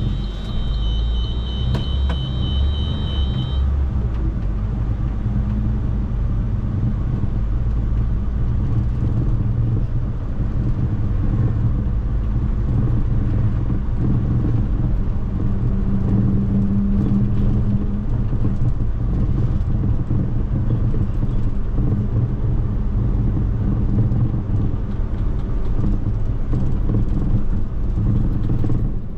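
Inside an MMI Urby LE CNG city bus under way: its Iveco F1C 3.0-litre CNG engine and Hi-Matic driveline run with a steady rumble, with a rush of air from a vent. A high two-tone electronic beeping sounds for the first few seconds.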